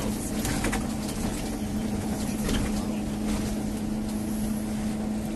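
Cabin sound of a Scania CL94UB city bus under way: the rear-mounted diesel engine runs with a steady hum over road rumble, with a few light clicks or rattles in the first second.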